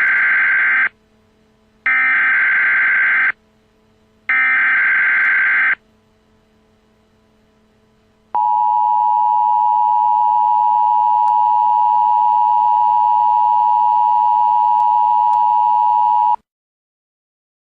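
Emergency Alert System tones: three short, identical bursts of warbling SAME header data, then the two-tone EAS attention signal, a loud steady tone of two close pitches held about eight seconds before it cuts off suddenly.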